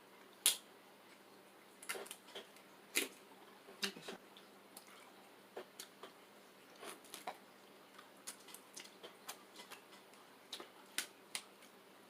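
Seafood shells, crab legs and shrimp, being cracked and peeled by hand while eating: irregular sharp clicks and snaps, the loudest about half a second in.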